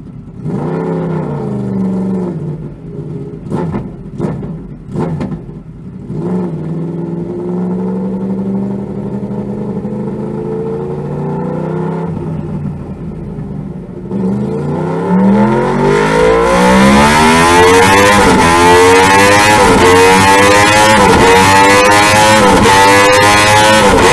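2012 Yamaha YZF-R1's crossplane inline-four on a dynamometer, breathing through a Toce slip-on exhaust with two of its four baffles removed and an Akrapovic titanium link pipe. A few short throttle blips with some sharp cracks, then a steady note as the rear wheel turns the roller, then from about fourteen seconds in a full-throttle dyno pull, the pitch rising steadily and the sound getting much louder as the revs climb.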